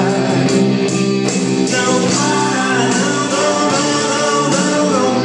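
Rock music led by electric guitar, played steadily.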